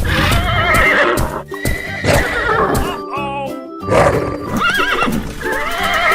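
Horse neighing sound effects, a quavering whinny heard about three times, over steady children's background music.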